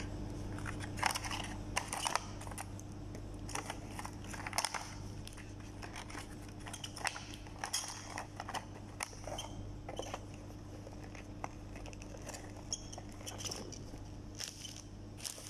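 Irregular clicks, taps and crinkles of hands handling small boxes, plastic packaging and a USB cable, over a steady low hum.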